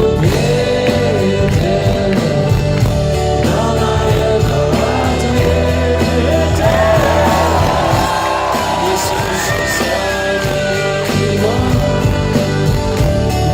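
A live rock band playing a slow, sad ballad, with a gliding melody line over sustained chords, heard from the audience through a phone microphone.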